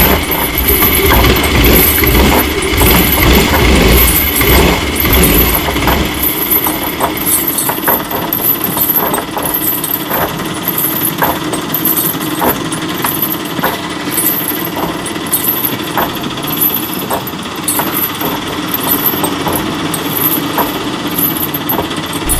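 Engine-like mechanical clattering with regular ticks and a steady buzz; a low rumble under it drops away about six seconds in.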